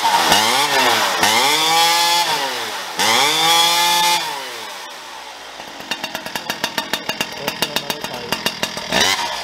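Farmertec G395XP 94cc two-stroke chainsaw engine with a tuned expansion-chamber exhaust pipe, just started and being blipped: several quick revs rising and falling over the first four seconds. It then drops back to an uneven idle with a regular pulsing of about four or five beats a second, and revs briefly again near the end.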